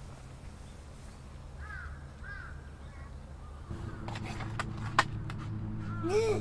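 Crows cawing: two faint caws about two seconds in and a louder caw near the end. A single sharp knock about five seconds in.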